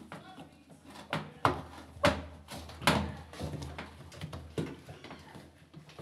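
A handful of sharp knocks and clicks, loudest about one and a half to three seconds in, as a gloved hand works a front-loading washing machine's rubber door seal and reaches into the drum.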